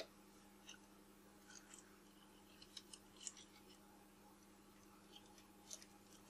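Faint, scattered small metal clicks and ticks of a precision screwdriver working the rear-mount screws of a Nikon Nikkor 70-300 mm zoom lens, over a low steady hum.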